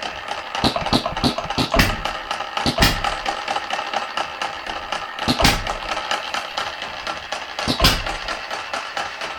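Red Wing 1/3-scale model single-cylinder hit-and-miss engine running, running in on camping fuel. It fires with a sharp bang four times at uneven gaps of one to nearly three seconds, coasting on its flywheels between firings with lighter ticking.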